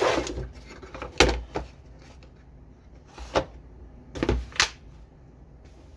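A click-type torque wrench being handled after reassembly: about half a dozen sharp knocks and clicks of metal and plastic parts, spaced irregularly, the loudest about a second in and again near four seconds in.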